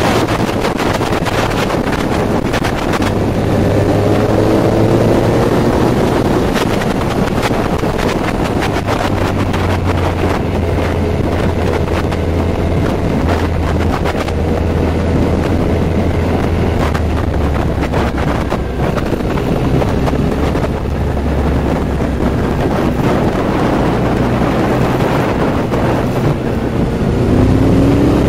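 Kawasaki Z1000 inline-four motorcycle engine running at speed, buried in heavy wind noise on the microphone. The engine pitch climbs a few seconds in and again near the end.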